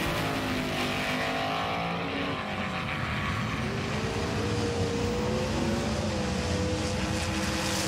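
Race car engine sound effect revving, its pitch falling over the first couple of seconds, then climbing and holding steady.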